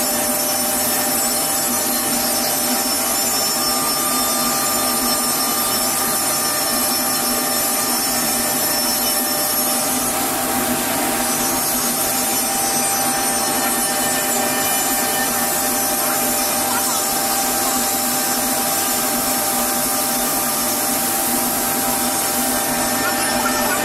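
SCM Morbidelli CX 100 CNC panel machining centre cutting melamine-faced particleboard. Its spindle gives a steady high whine over the continuous hiss of the tool in the wood, and the hiss swells briefly near the middle and again near the end.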